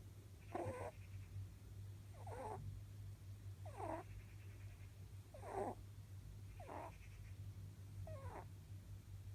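Elderly rabbit snoring in its sleep: six short, soft snores, one about every second and a half, over a steady low hum.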